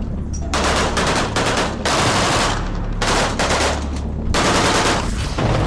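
Bursts of automatic gunfire, about four rattling volleys roughly a second apart, over a steady low rumble.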